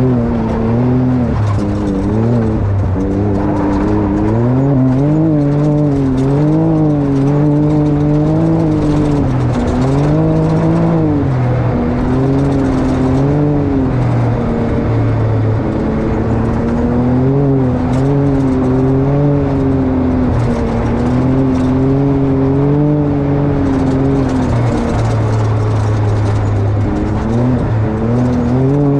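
Can-Am X rc side-by-side's engine running under way, its pitch rising and falling over and over every second or two as the throttle is worked.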